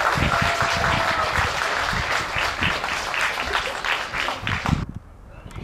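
Audience applauding, many hands clapping, until it cuts off suddenly near the end.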